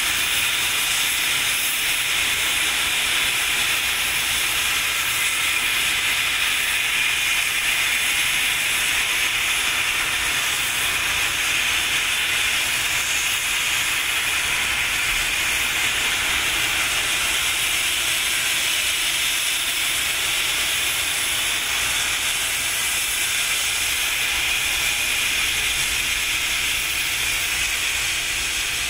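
Steam locomotive CFL 5519 venting steam low around its cylinders and wheels while standing: a loud, steady hiss with no exhaust beats.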